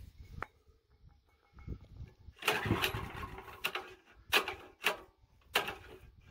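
Honda GX340 single-cylinder engine being pull-started: after about two and a half seconds of quiet, the recoil starter is yanked and the engine cranks in a series of short bursts without settling into a steady run.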